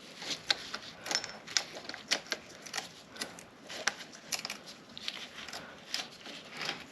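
Loose saw chain being fitted onto a chainsaw bar and drive sprocket: small metal links clinking and ticking in an irregular scatter of light clicks.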